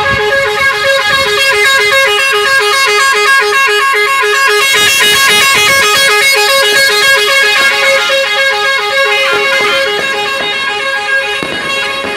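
Vehicle horns honking without a break, one of them a multi-tone musical horn playing a fast tune of stepped notes over and over.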